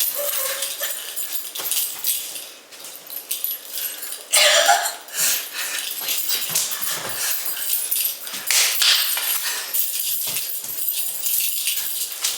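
A dog whining, with short high cries; the loudest, rising cry comes about four and a half seconds in.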